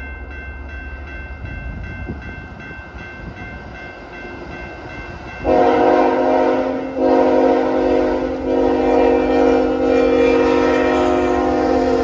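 Freight train approaching with a steady low rumble from the locomotive and wheels. About halfway through, its horn sounds a loud, long multi-note chord, broken once briefly a second later, and holds to the end.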